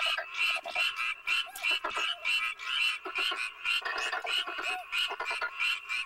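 Frogs croaking, short calls repeated evenly at about three or four a second.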